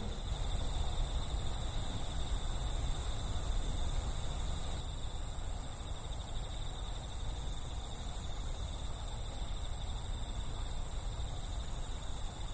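Night-time crickets trilling steadily in a continuous high chorus over a constant low rumble.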